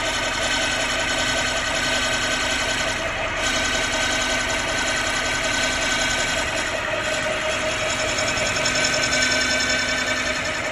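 Lathe running steadily, turning the face of a clutch-type plate level and smooth, with a constant hum and a higher steady whine.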